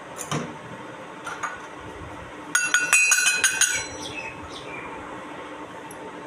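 Miniature toy kitchenware pieces clinking against each other: two light taps, then a quick run of about eight ringing clinks lasting just over a second, followed by a few softer rings that fade out.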